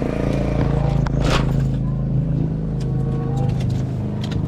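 Car engine idling steadily, with a brief sharp noise about a second in.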